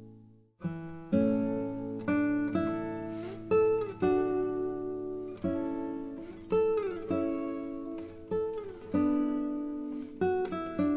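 Background music: acoustic guitar picking a melody of single notes, some sliding down in pitch, starting after a brief gap about half a second in.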